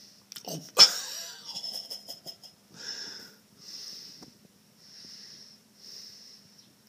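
Wheezy, whistling breathing close to the microphone, about one breath a second, with a sharp knock and a short clatter about a second in.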